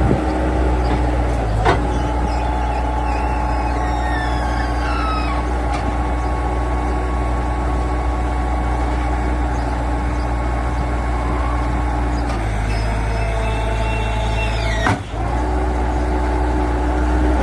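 Bobcat 763 skid steer's diesel engine running steadily. A higher whine slides down in pitch about four seconds in. The sound briefly drops out about fifteen seconds in.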